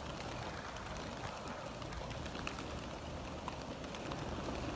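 Faint, steady outdoor background noise with a few faint ticks.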